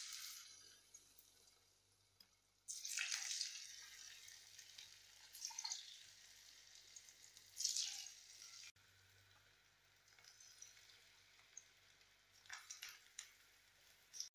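Balls of moong dal (green gram) fritter batter sizzling as they deep-fry in hot oil in a kadai, a faint steady hiss. The sizzling surges a few times as fresh balls of batter are dropped in.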